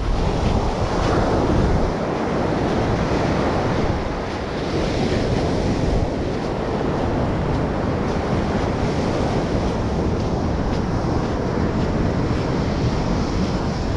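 Ocean surf washing onto a sandy beach, with wind rumbling on the microphone; the wash swells a little about a second in.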